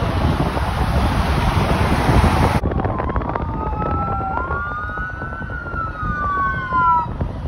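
For the first two and a half seconds, a fire engine passing, heard as a steady rumble with wind on the microphone. The sound then cuts to two electronic fire-apparatus sirens wailing at the same time: each slowly rises and falls in pitch, out of step with the other.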